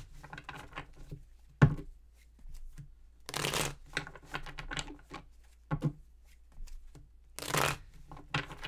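A tarot deck being shuffled by hand: cards sliding and rustling against each other in a few short runs, with scattered light clicks and two sharp knocks, the first about a second and a half in being the loudest.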